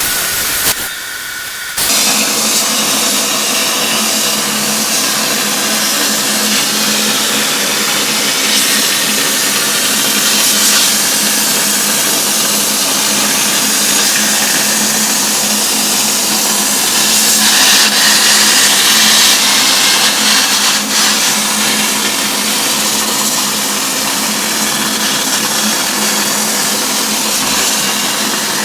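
Plasma cutter cutting 2 mm steel plate at 30 amps: a steady hiss of arc and air over an even hum. It breaks off briefly twice in the first two seconds, then runs on without a break.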